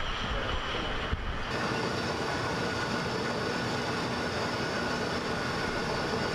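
Fishing vessel's deck machinery running steadily: engine and winch noise with a steady whine, its sound changing about a second and a half in.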